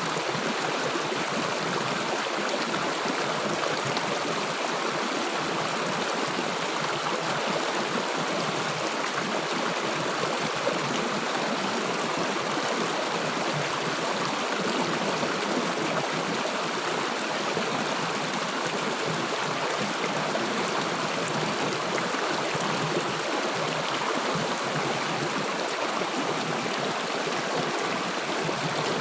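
River water rushing and gurgling over stones in a steady, unbroken flow.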